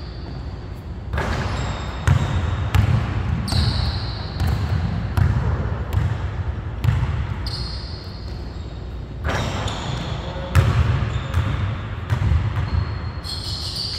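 A basketball bouncing and being dribbled on a hardwood gym floor, irregular thumps, with a few short high squeaks from sneakers on the floor.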